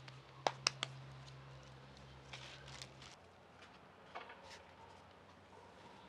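Hands slapping a ball of corn masa between the palms to shape a tortilla, three sharp pats in the first second. Later come faint soft rustles and scrapes as tortillas are turned by hand on a metal comal.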